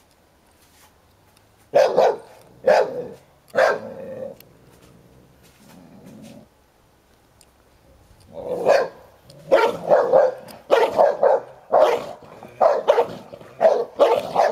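Barking from a Hovawart and a young American Staffordshire Terrier squabbling in play over a toy: three sharp barks about two seconds in, then after a pause a quick run of about ten barks in the last six seconds.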